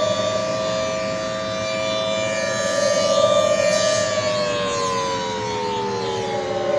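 Outdoor warning siren sounding a steady chord of close tones, which begins to wind down, falling in pitch, about four seconds in.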